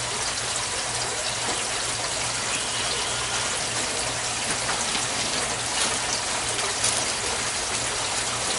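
Steady rush of splashing water with a low steady hum underneath, with a few faint clicks over it.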